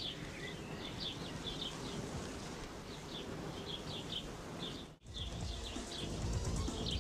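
Small birds chirping again and again over a steady outdoor hiss. After a brief drop in level about five seconds in, the background becomes louder and deeper while the chirping goes on.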